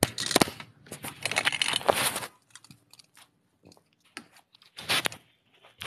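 Handling noise from a phone being picked up and repositioned: fingers rubbing and scraping over the body near the microphone in a rustling burst of about two seconds, then scattered clicks and knocks, and another short rustle about five seconds in.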